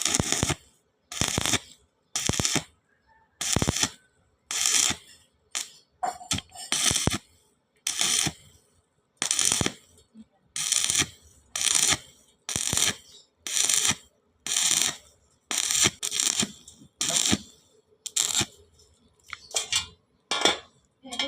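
Metal struck over and over in a steady rhythm, roughly one blow a second, each a short metallic clink that dies away quickly.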